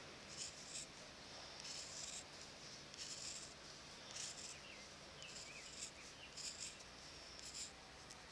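Scissors snipping through soft leather, a string of short crisp cuts about once a second, as a lace is cut in a spiral from a round piece of hide.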